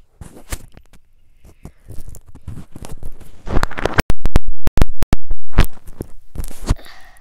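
Slime being squished and pulled by hand close to the microphone: sticky squelching and scraping with scattered clicks. About four seconds in comes a quick run of very loud popping clicks that lasts about a second and a half.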